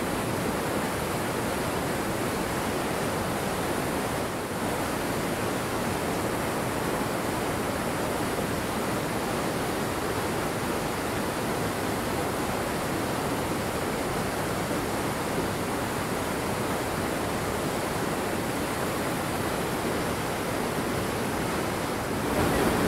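Fast creek water rushing steadily over rocks in whitewater rapids. It gets louder near the end.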